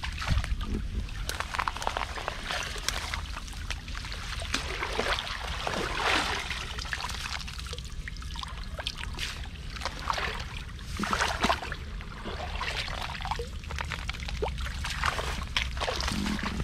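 Shallow water sloshing and splashing in uneven bursts, with some pouring and trickling.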